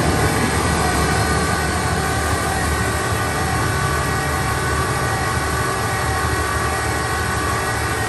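Vögele Super 1800-3i asphalt paver running with its spreading augers turning: a steady machine drone with a few steady high tones through it.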